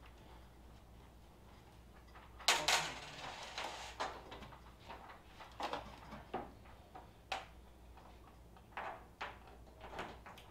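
Irregular knocks and clicks of hardware being fitted: bolts with sealing washers going through a Curtis tractor cab roof into its pillars. The loudest knock comes about two and a half seconds in.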